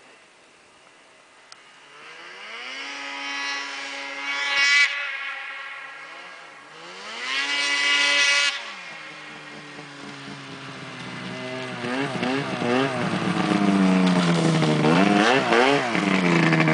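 Ski-Doo MXZ 600 two-stroke snowmobile engine breathing through an MBRP aftermarket exhaust can, revved twice with the pitch climbing and then falling back. From about eleven seconds in it runs louder with a series of quick throttle blips.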